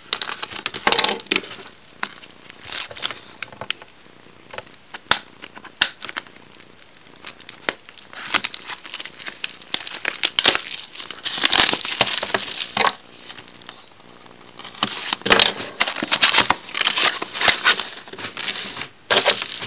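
Plastic wrapping of a trading-card box crinkling and crackling in irregular handfuls as the box is unwrapped and opened, with a few sharper clicks and tearing noises.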